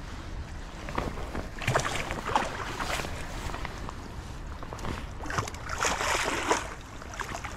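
A hooked chum salmon thrashing and splashing at the surface of the river in two bursts, about two seconds in and again about six seconds in.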